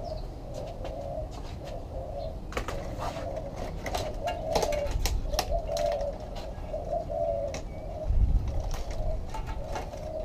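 A dove cooing over and over in low, repeated phrases. Sharp clicks and knocks of parts being handled come through the middle, and there is a low thump about eight seconds in.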